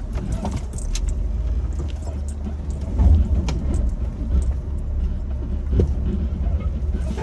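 Jeep rock-crawling at low speed: a steady low engine rumble with the body and loose gear rattling and clattering over the rocks, and heavier thumps about three seconds in and again near the end.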